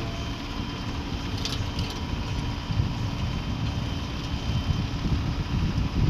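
JCB 3DX backhoe loader's diesel engine running under load as the bucket full of earth is lifted and swung over to the trolley. It is a steady low rumble with an uneven pulse, and a few faint steady whining tones ride over it.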